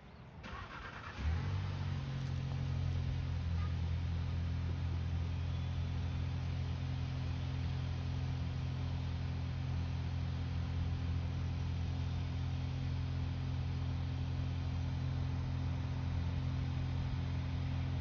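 A car engine starts about a second in and then idles steadily with a low, even hum.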